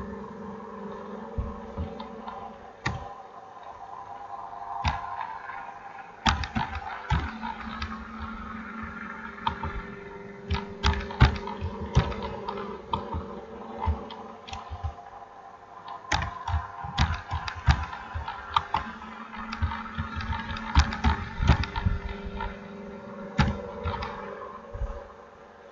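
Irregular clicks of text being typed at a computer, coming in quick runs with short pauses, over a steady low hum.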